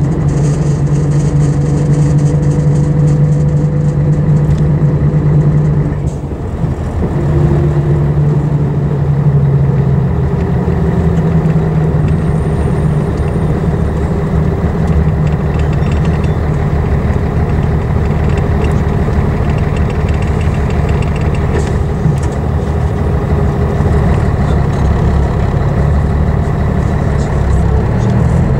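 Diesel engine of an Ikarus EAG 395 coach on a Scania chassis running under way, heard from aboard the bus. There is a brief dip in the engine note about six seconds in, then it picks up again and runs steadily.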